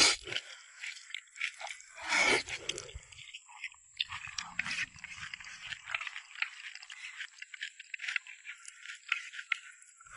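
A person eating rice close to the microphone: chewing, with small irregular clicks and scrapes of chopsticks.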